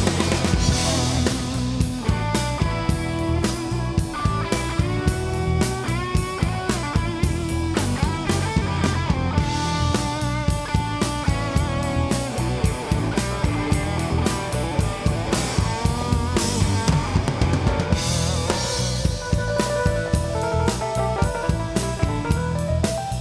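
Live rock band playing an instrumental passage with no vocals: a drum kit drives a steady beat with kick and snare under bass and sustained melodic lines from the other instruments.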